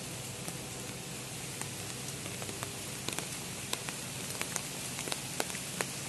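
Steady outdoor hiss with scattered sharp ticks that come more often in the second half.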